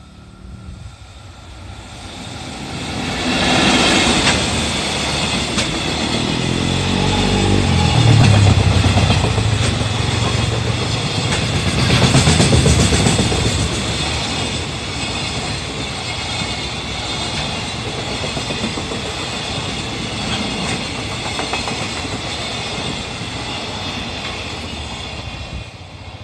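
EF65 electric locomotive hauling a freight train past a level crossing: the locomotive comes up and passes with a motor whine that falls in pitch, then a long line of freight wagons rolls by with steady wheel noise and clickety-clack over the rail joints. The crossing's warning bell rings throughout.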